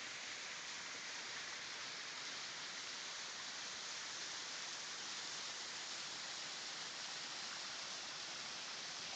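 Waterfall: falling water making a steady hiss.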